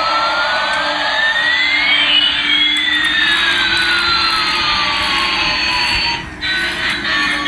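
Toy Airbus A380's electronic jet-engine sound effect: a steady hiss with one tone rising and another falling, crossing about two seconds in. It cuts off suddenly about six seconds in.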